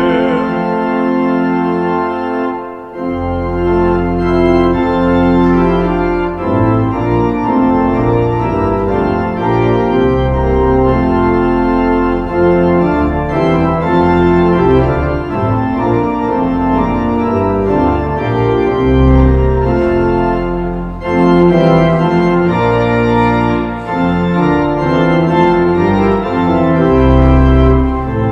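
Church organ playing the closing music after Mass, solo: held chords that change every second or two over deep pedal notes, with a short break about three seconds in.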